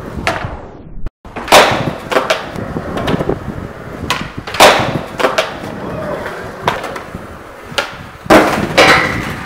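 Skateboard on concrete: wheels rolling, broken by a run of sharp clacks as the board is popped and slapped down on and off a ledge, the loudest about one and a half, four and a half and eight seconds in. The sound drops out for a moment about a second in.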